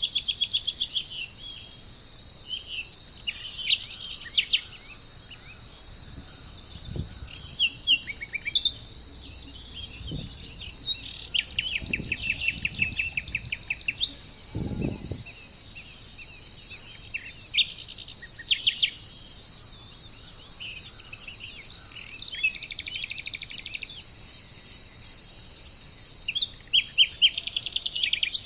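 Birds calling with scattered chirps and a fast trill midway, over a steady high-pitched drone of insects.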